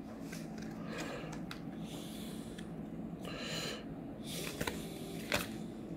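Quiet handling of a stack of trading cards in the hand: a few faint clicks and slides as cards are flipped through, over a low steady hum.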